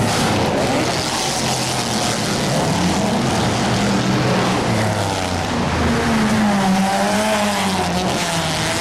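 IndyCar race cars passing at speed one after another, their turbocharged V8 engines rising and falling in pitch as each goes by, with no break in the noise.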